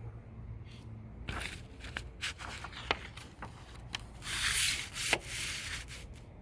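Paper catalog pages being handled and turned: a series of short paper rustles and brushing sounds with a few sharp ticks, and a longer, louder rustle about four seconds in.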